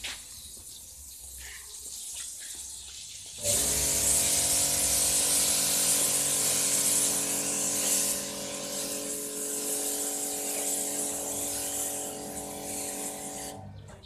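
Foam spraying from a self-service car wash machine's high-pressure spray gun, a strong steady hiss, with the machine's pump humming at a steady pitch underneath. Both start about three and a half seconds in and cut off just before the end.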